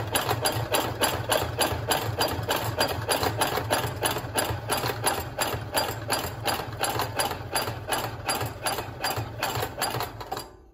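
Consew 733R-5 industrial walking-foot lockstitch machine sewing through folded denim at a slow, steady pace of about four stitches a second over a low motor hum, while the stitch length is moved from very short to longest. It stops suddenly at the end.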